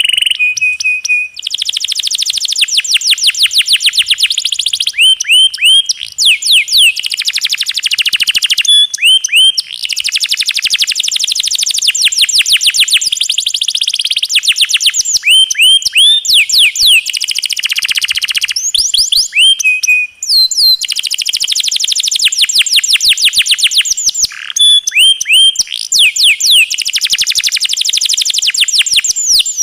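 Domestic canary singing a long rolling song: very fast trills of rapidly repeated notes broken by quick sweeping whistles, almost without pause, with a short break about 20 seconds in.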